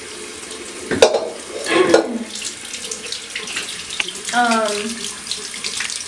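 Water running steadily from a tap, being run until it comes out warm, with two loud knocks about a second and two seconds in.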